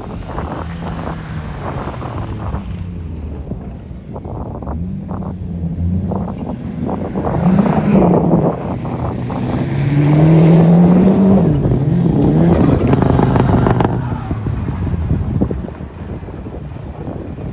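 Mitsubishi Lancer Evolution IX rally car's turbocharged four-cylinder engine revving hard, its note rising and falling again and again. It grows louder toward the middle and fades near the end, with wind on the microphone.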